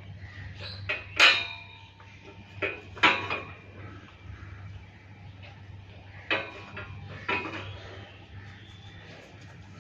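A series of sharp metallic clanks, each with a brief ring, coming at irregular intervals; the loudest is about a second in.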